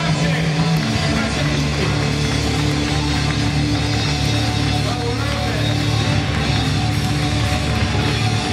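Live rock band playing at full volume: electric guitars, bass guitar and drum kit.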